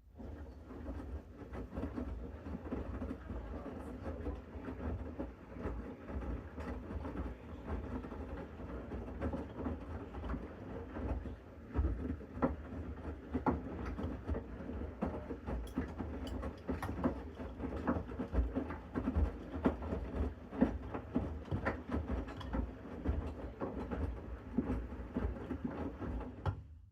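Bosch Series 6 front-loading washing machine in the main wash of a 60-degree mixed-load programme. The drum turns with a low rumble while the laundry tumbles with irregular clicks and knocks.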